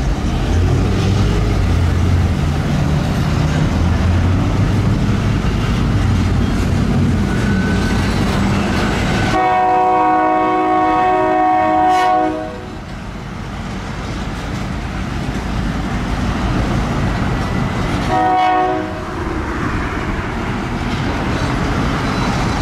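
Diesel freight locomotive running close by, its engine rumbling, then sounding its horn for the grade crossing: one long blast of about three seconds, and a short blast about six seconds later.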